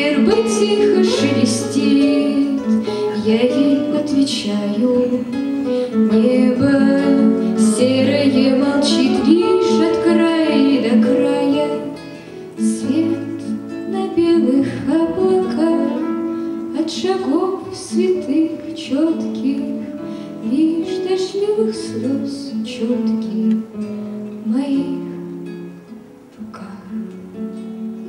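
A girl singing a song to her own acoustic guitar, with a second acoustic guitar accompanying her. The music grows quieter about twelve seconds in.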